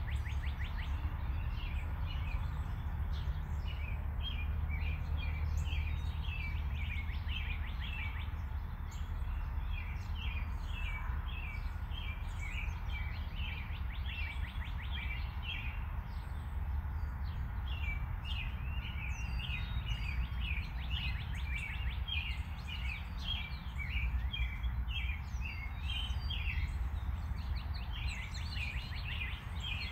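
Small birds chirping in quick, irregular short calls over a steady low rumble.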